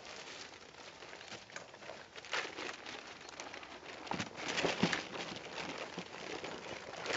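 Rustling and crinkling of packaging as a fridge's carry bag and wrapping are handled, with a few soft knocks about four to five seconds in.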